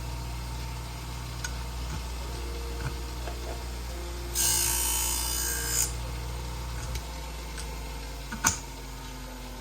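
Twice As Sharp scissor sharpener's motor humming steadily, with a hissing grind lasting about a second and a half near the middle as a kitchen-shear blade is passed across its 240-grit diamond wheel. A sharp click comes near the end.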